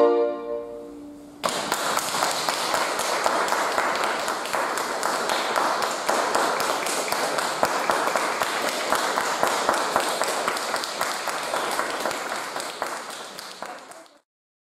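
The last chord of a violin trio dying away in a reverberant chapel, then audience applause that breaks out about a second and a half in and fades out near the end.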